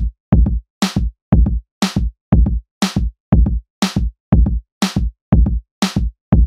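Background electronic music: a steady drum-machine beat with a hit every half second, a low kick alternating with a sharper snare-like crack.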